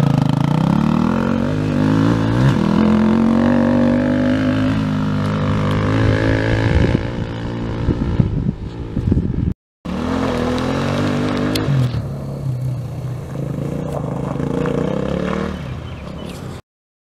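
KTM 350 EXC-F single-cylinder four-stroke dirt bike engine revving, its pitch rising and dropping with throttle and gear changes, with some clattering about eight seconds in. The sound breaks off abruptly at about ten seconds, resumes at a steadier pitch, and cuts off suddenly just before the end.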